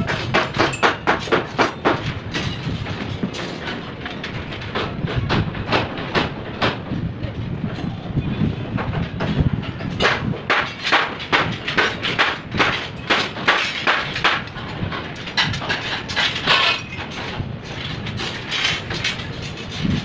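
Rapid repeated knocks in uneven runs of about four strokes a second, over a low rumble, typical of work on a construction site.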